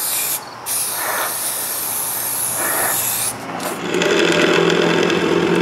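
Aerosol spray-paint can hissing in two spurts. About three and a half seconds in, a drill press starts running and boring through steel strapping.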